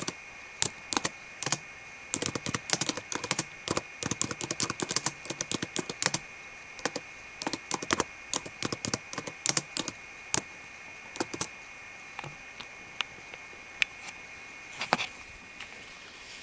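Typing on a laptop keyboard with very long fingernails: quick runs of clicky taps as the nail tips strike the keys, thinning to scattered single taps after about eleven seconds, with a brief rustle near the end.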